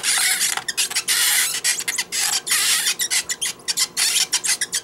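Plastic crank of a Play-Doh Rapunzel Hair Designs toy being turned, forcing Play-Doh up through the doll's head to grow her hair; it makes a run of scratchy, grinding strokes, several a second.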